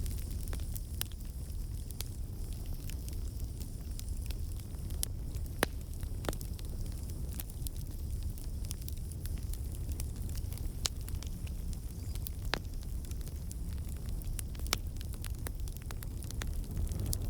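Campfire burning with a steady low rumble and irregular sharp crackles and pops of wood.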